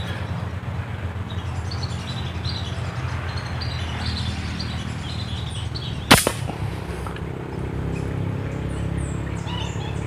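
A single sharp shot from a scoped air gun, fired about six seconds in. Small birds chirp in short high calls throughout, over a steady low rumble.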